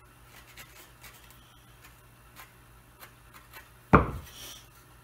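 Faint scraping and light ticks of a chisel paring old glue and wood out of a broken mahogany table-leg joint. About four seconds in comes a single sharp knock, the loudest sound, as the chisel is set down and the wooden pieces are handled.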